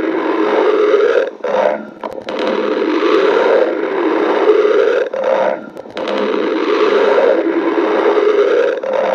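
Human stomach growling in long, drawn-out rumbles, broken by short pauses about a second and a half in and again about five and a half seconds in.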